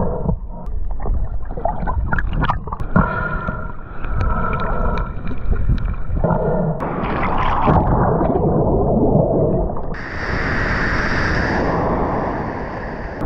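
Muffled underwater sound of a freediver swimming over reef: gurgling and sloshing with sharp knocks and clicks. About ten seconds in, this gives way to the steady hiss of breaking surf as the diver comes out through the shore break.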